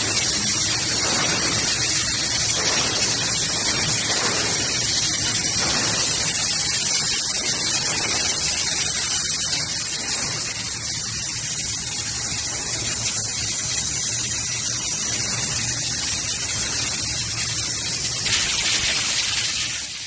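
Steady loud hiss of compressed air feeding an underwater air-pressure leak test of a welded water heater tank.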